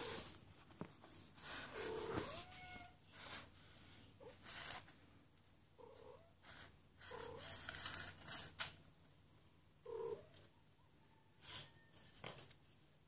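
Silver Persian kittens giving several short mews, one rising in pitch, with scratching and rustling as they chew and paw at a cardboard tube on a tile floor.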